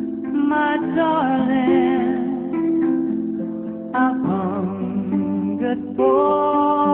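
Music: a slow melody of held, gliding notes over plucked-string accompaniment.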